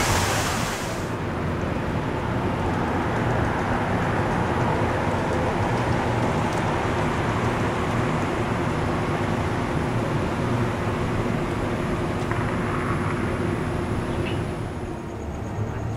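Water from the Merlion fountain spout splashing, cut off abruptly about a second in. After it comes steady city background noise with a low traffic rumble.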